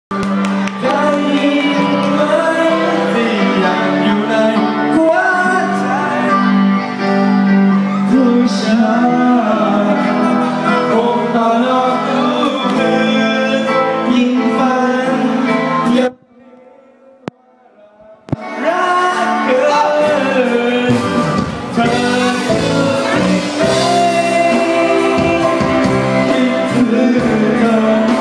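A man singing through a microphone over loud amplified backing music. About sixteen seconds in, the music drops out for about two seconds, with a click or two, then comes back.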